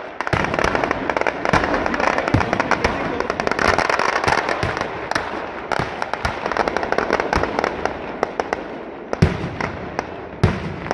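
Firecrackers going off in a dense, rapid crackle of many small bangs, then a few separate louder bangs near the end.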